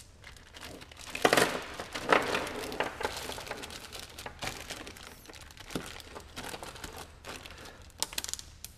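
A plastic zip-top storage bag crinkling as bolts are bagged and the bag is pressed flat, with a few sharp clicks near the end.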